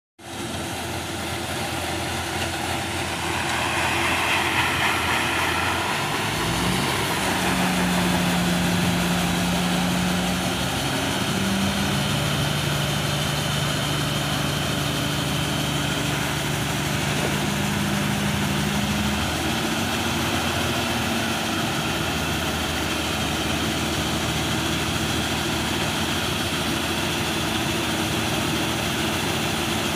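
Hira 985 Harvest King combine harvester running steadily while it unloads grain through its spout, a dense mechanical drone. Its pitch steps up about six seconds in as the machine picks up speed.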